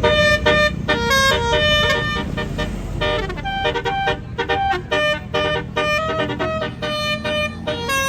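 Tour bus's Basuri telolet horn, an electric multi-tone horn, playing a fast tune of short honked notes, with the bus's engine running low underneath.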